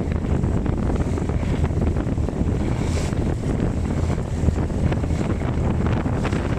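Steady wind buffeting the microphone on an outrigger boat under way, mixed with the rush of the boat through choppy water.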